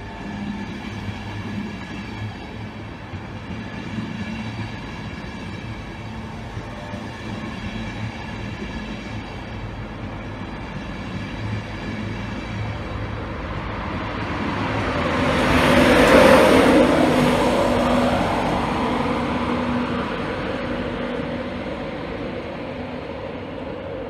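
Class 91-hauled LNER train of Mark 4 coaches running past a station platform. Its rumble and rail noise build to a loud peak about two-thirds of the way through, then fade as it pulls away.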